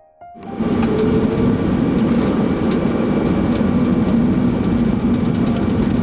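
Jet airliner cockpit noise during the landing rollout: steady engine and rushing air noise with a low hum, cutting in abruptly about half a second in.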